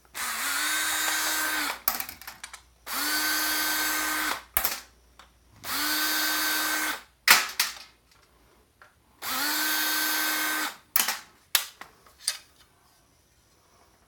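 Cordless power driver spinning four times, each run about a second and a half long, starting up and winding down, as it backs out the screws holding a hard drive's cover. Sharp clicks and knocks of small parts and the tool being handled come between runs, one loud click in the middle.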